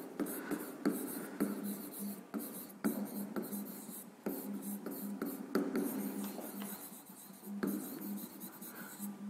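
Stylus tapping and scraping on the glass of an interactive touchscreen display as words are handwritten: irregular clicks and short strokes, with brief pauses between letters.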